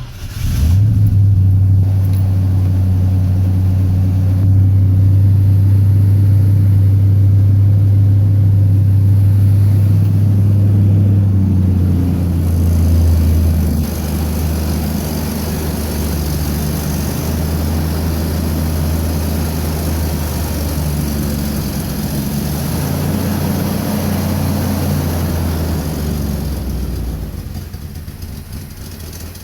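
5.0 V8 engine starting and idling, first at a higher, steady speed, then settling about twelve seconds in to a lower, uneven idle that wavers in level. The rough idle is the sign of a vacuum leak from a PCV valve popped out of its socket because of old, brittle PCV lines.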